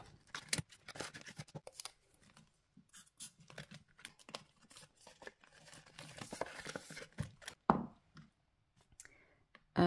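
Paper money and envelopes being handled: scattered light rustles and small clicks, with a quieter stretch near the end.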